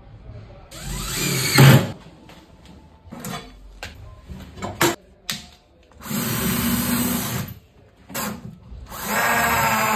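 12 V cordless drill boring holes into a laminate-faced corner post with a twist bit. It runs in several short bursts, the longest about a second and a half, with small handling knocks between.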